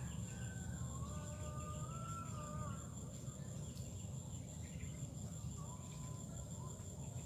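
Steady high-pitched insect drone in swamp forest, over a low rumble, with a faint drawn-out call from farther off during the first three seconds.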